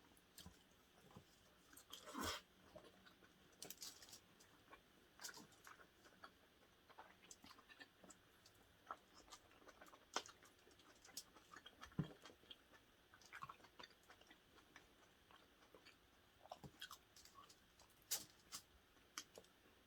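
Faint chewing and biting of food, with scattered short clicks and taps.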